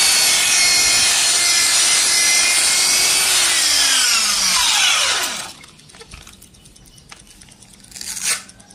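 Electric rotary polisher wet-sanding scratched car glass with a sandpaper disc: a steady whine with rubbing. About three seconds in it is switched off and its pitch falls away as it spins down, stopping about five and a half seconds in. Then only light handling clicks, with a short scuff near the end.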